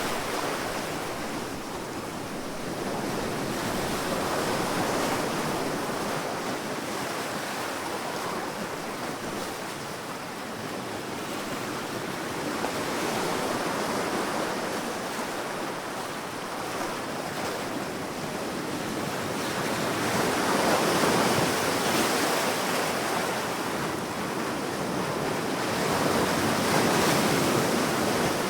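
Sea waves washing ashore, a steady rushing that swells and ebbs, with a wave peaking about every seven to eight seconds.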